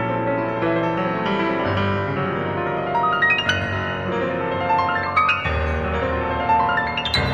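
Solo acoustic piano improvisation: dense, flowing chords over held bass notes, the bass shifting twice. Quick flourishes ripple up into the treble several times, about halfway through and again near the end.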